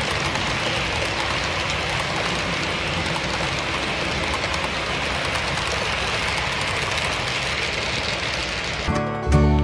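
Model freight train rolling past on the layout track with a steady running noise, with voices murmuring in the background. Just before the end it cuts off and a strummed acoustic guitar comes in with a sharp chord.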